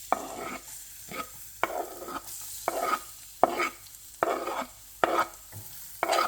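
Chopped garlic frying in coconut oil in a pan over a low flame, sizzling faintly while it is stirred, the utensil scraping across the pan about twice a second.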